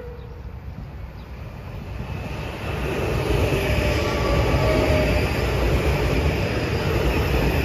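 Metro-North M8 electric commuter train approaching and passing close by at speed. The rumble of its wheels on the rails grows louder over the first three seconds and stays loud as the cars go by.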